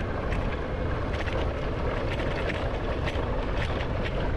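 Wind rushing over the microphone and tyres rolling on a dirt trail while riding an electric dirt bike, with scattered small ticks and knocks.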